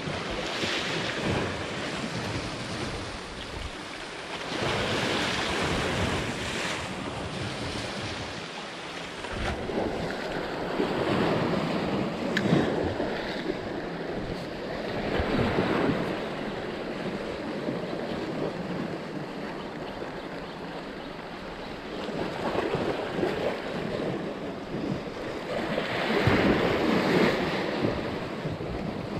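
Sea waves washing against a rocky shore, swelling and fading every few seconds, with wind buffeting the microphone.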